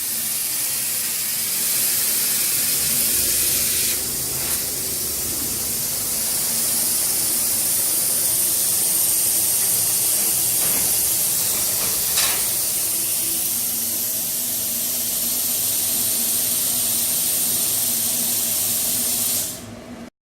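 CNC plasma torch cutting 2 mm sheet metal: a steady, loud hiss from the plasma arc and its air jet, over a low steady hum, with a few brief clicks. The hiss cuts off just before the end.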